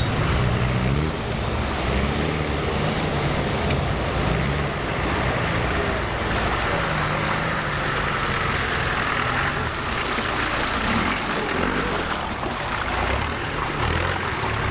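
Off-road vehicle engine running, its pitch rising and falling with the revs, over a steady rushing noise.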